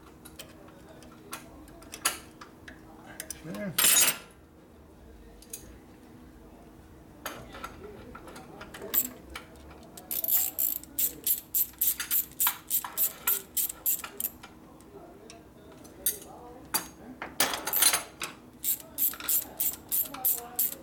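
Worm-drive hose clamp being tightened with a screwdriver: runs of quick metallic clicks, about four a second, from about ten seconds in and again near the end. A single louder clatter comes about four seconds in.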